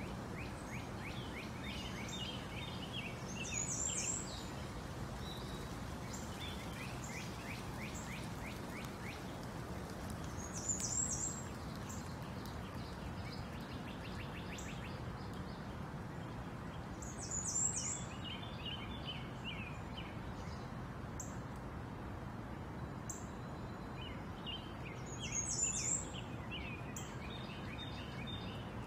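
Birds chirping in quick runs, with a short, louder high-pitched call about four times, several seconds apart, over a steady low hum.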